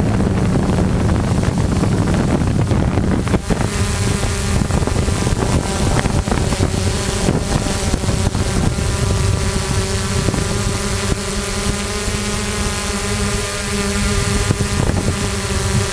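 Motors and propellers of an HMF S550 hexacopter, a steady droning hum heard from its own on-board camera, with wind buffeting the microphone. The hum stands out more clearly from about four seconds in, as the wind rumble eases.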